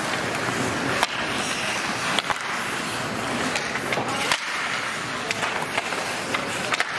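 Ice hockey play: skate blades scraping and carving across the ice, with a handful of sharp clacks of sticks on the puck.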